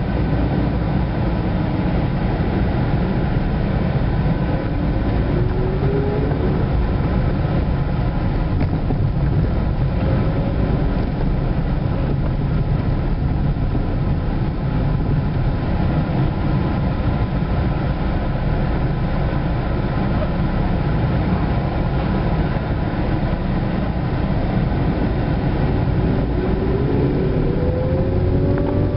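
Car engine and road noise heard from inside the cabin while driving, steady, with the engine note rising about five seconds in and again near the end as the car speeds up.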